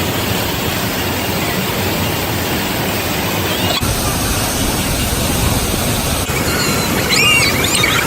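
Waterfall and rushing water, a loud, steady roar cut twice by abrupt edits, with a brief shout or call near the end.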